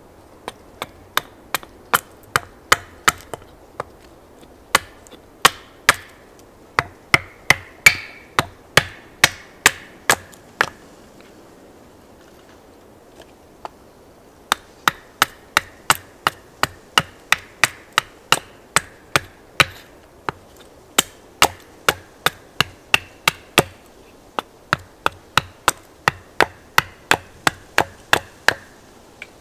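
Small hatchet chopping into an upright split log in short, quick strokes: sharp wooden knocks about two a second. There is a pause of a few seconds near the middle before the chopping resumes.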